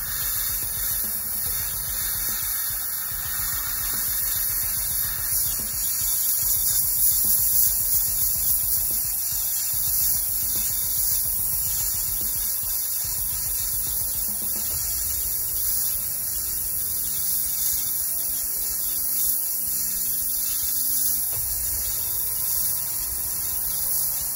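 Airbrush hissing steadily as it sprays a thin coat of red paint, over a steady low hum.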